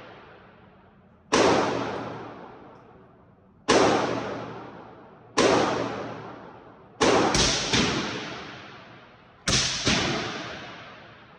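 Suppressed gunshots through a CGS SCI-Six suppressor. There are single shots about two seconds apart, then a quick string of three, then two close together near the end. Each is a sharp report that trails off in a long echo.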